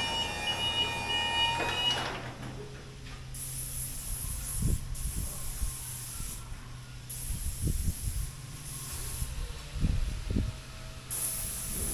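Spray gun hissing in on-off bursts of a second or two as the hull is sprayed in the booth, over a steady low hum and a few dull knocks. A steady tone with overtones runs at the start and stops about two seconds in.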